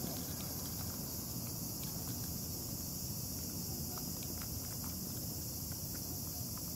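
A steady, high-pitched insect chorus drones over a constant low rumble. A few faint, short ticks come through it now and then.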